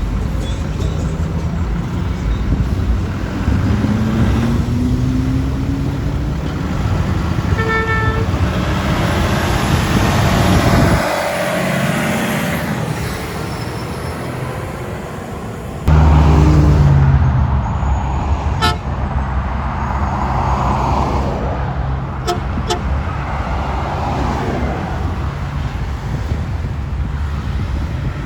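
Garbage truck engines running, with one short horn toot about eight seconds in. A louder, deeper engine sound starts suddenly just past halfway.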